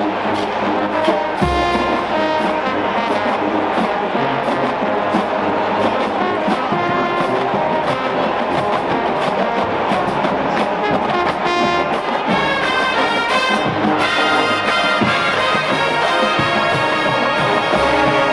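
Marching band playing a brass arrangement, trombones and trumpets carrying the tune, over a steady drum-line beat.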